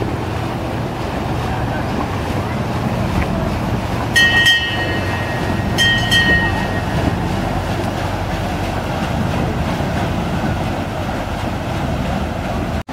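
Lucy Fisher paddle steamer's stern paddle wheel churning the water, a steady rushing noise as the boat moves off. About four seconds in come two short high-pitched whistle toots, about a second and a half apart.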